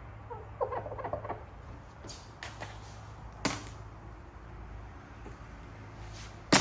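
Vinyl stripe film being handled and tensioned against a car fender: short squeaks and scattered crackles, with a sharp snap near the end, over a steady low hum.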